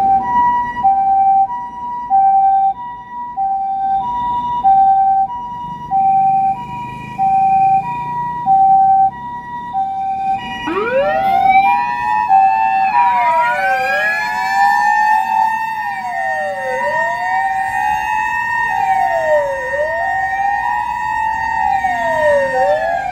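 Japanese ambulance (Nissan Caravan) electronic two-tone siren, alternating a high and a low tone about every two-thirds of a second. About ten seconds in, a mechanical motor siren winds up and then keeps wailing, rising and falling every few seconds on top of the two-tone.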